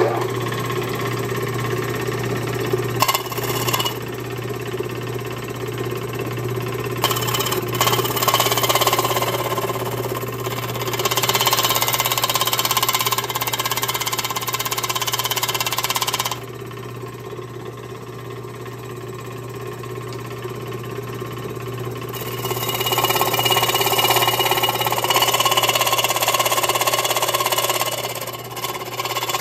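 A 1950s Delta Rockwell Homecraft scroll saw starts suddenly and runs steadily, its reciprocating blade cutting through an aluminium plate. The harsher cutting noise drops for several seconds past the middle, then rises again.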